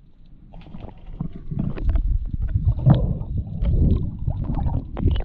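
Water noise underwater, picked up by a diver's camera as he swims: muffled, irregular rumbling and gurgling with scattered knocks.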